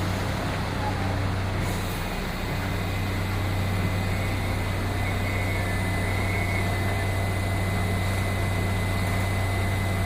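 Heavy engine running steadily at idle: an even low drone with a faint steady high whine over it.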